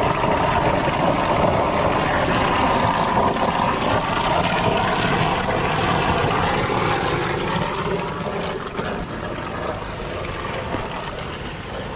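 A motor engine running steadily; its pitch drops from about four seconds in and the sound grows a little quieter after about eight seconds.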